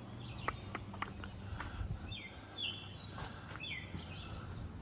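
Birds chirping, short downward-slurred calls repeated several times, with three sharp clicks in the first second or so and a low steady hum underneath.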